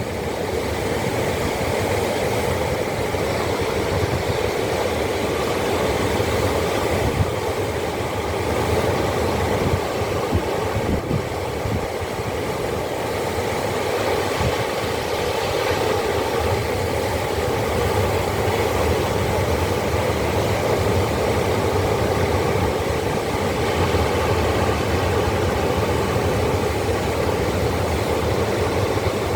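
Ocean waves: a steady rush of surf with a low rumble underneath.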